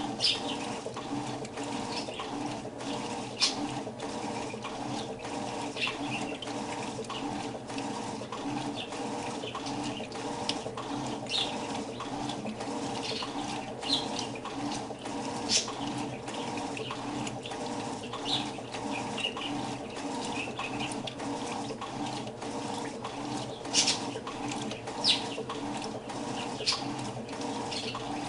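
Electrolux washing machine running: a steady motor hum with watery splashing and irregular sharp ticks over it, a few of them louder.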